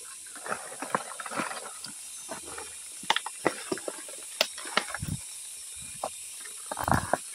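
Leaves and twigs crackling and rustling as someone pushes through forest undergrowth on foot, with a few dull thuds of steps on the ground, over a steady high hiss.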